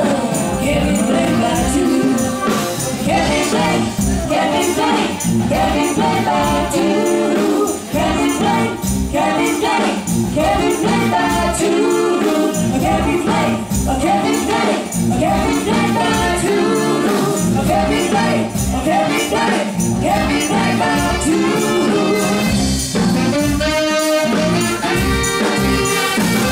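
Live band playing an upbeat song with a woman singing lead: drums, electric bass, electric guitar, keyboards, saxophones and hand percussion, over a steady beat.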